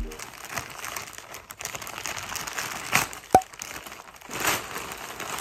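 Plastic mailer bag crinkling and rustling as it is handled and pulled open by hand, with two sharp clicks about three seconds in.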